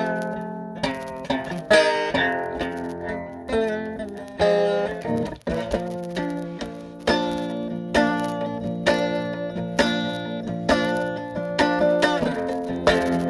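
A stringed instrument played in slow chords, each struck about once a second and left to ring; it is out of tune.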